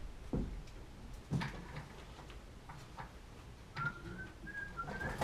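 A few soft knocks and clicks of handling, then a person whistling faintly, a short wavering tune, through the last second and a half.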